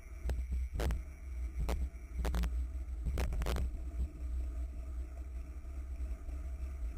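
Wind buffeting and road rumble on a camera mounted to a racing road bicycle moving at speed, with several sharp knocks or rattles in the first half.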